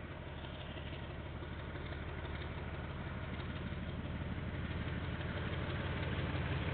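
Diesel locomotive engine running steadily with a deep low hum, slowly growing louder as the train draws nearer, heard through a security camera's microphone.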